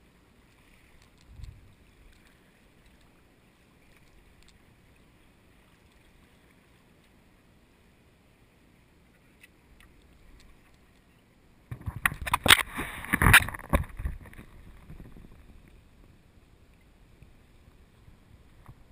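Sea kayak being paddled on calm water: faint lapping and paddle strokes. About twelve seconds in comes a loud burst of close noise at the microphone lasting about two seconds.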